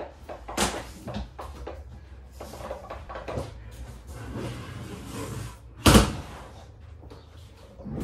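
Household knocks and clatter from things being handled, with stretches of rustling and one sharp, loud bang about six seconds in.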